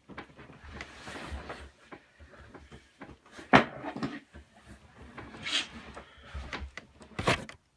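Items being handled in a cardboard shipping box: rustling and scraping with a few sharp knocks, the loudest about three and a half seconds in and another near the end.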